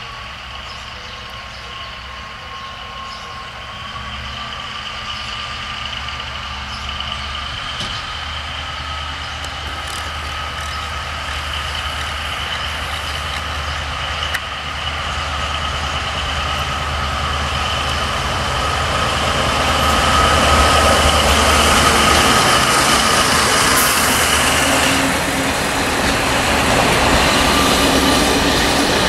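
LDH diesel-hydraulic locomotive pulling a passenger train away from a station, its diesel engine under load with a steady high whine over it. The sound grows steadily louder as the train draws near, and the engine is loudest about two-thirds of the way through as the locomotive passes close.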